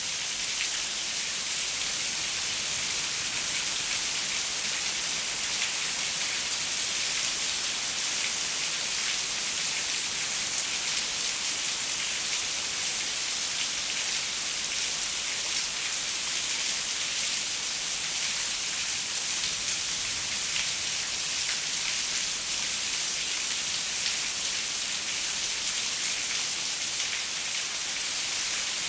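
Steady rain pattering on a window, a dense even hiss with many fine drop ticks and no thunder.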